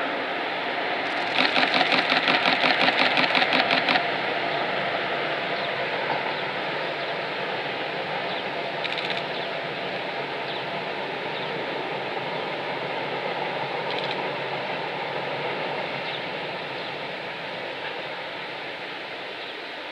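Oil tank train hauled by two DD51 diesel-hydraulic locomotives rolling across a steel girder bridge. About a second in, a rapid rhythmic clatter of about four beats a second lasts roughly three seconds. It gives way to a steady rolling noise that slowly fades.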